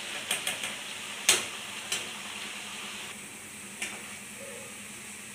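Grated potato shreds deep-frying in hot oil in a metal kadhai, a steady sizzle as they start to crisp. A few sharp clicks of a metal spoon knocking against the pan as they are stirred, the loudest about a second in.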